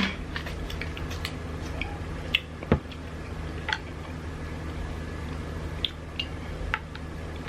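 Close-miked chewing of sushi rolls: soft wet mouth clicks and squishes at irregular moments, the sharpest about three seconds in, over a steady low hum.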